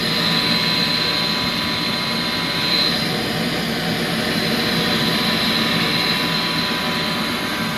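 Heil gas furnace running: a steady whooshing rush of its blower and burners with a thin, steady high whine over it.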